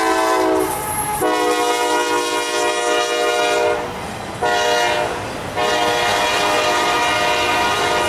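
Diesel locomotive air horn sounding the long-long-short-long grade crossing signal: the end of one long blast, a second long blast, a short one, then a last long blast that is still sounding at the end, over the running noise of the train.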